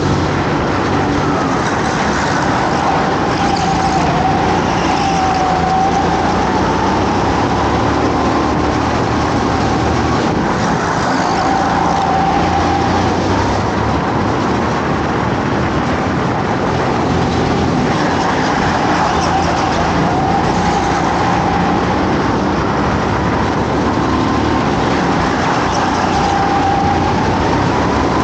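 Go-kart engine racing at full throttle, its pitch dropping and climbing again several times as the kart brakes into corners and accelerates out of them.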